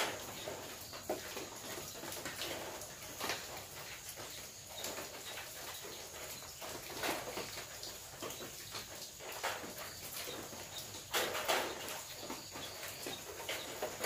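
Rain easing off on a corrugated zinc roof: scattered, uneven drips and taps on the metal over a faint hiss, with a thin steady high tone underneath.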